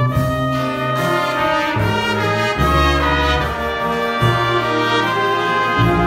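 Big band playing a slow ballad: a trumpet plays the lead line over held brass and saxophone chords, with a low bass line moving underneath.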